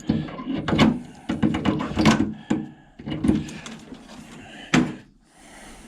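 Irregular knocks, clunks and rattles from parts and tools being handled inside a sheet-metal appliance cabinet as wires are pulled loose, with a few louder knocks among them.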